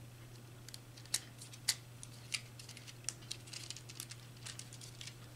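Scattered small plastic clicks and knocks from an auxiliary contact block being handled and fitted onto the front of a magnetic contactor by hand. The two sharpest clicks come about a second in and half a second later.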